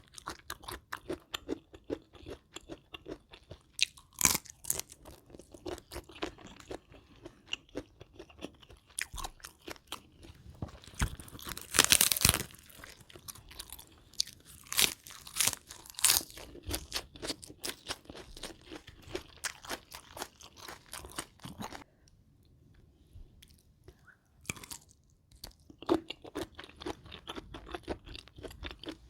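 A person chewing crunchy food close to the microphone, in irregular crisp crunches and bites, with a loud burst of crunching about twelve seconds in and a brief lull a few seconds before the end.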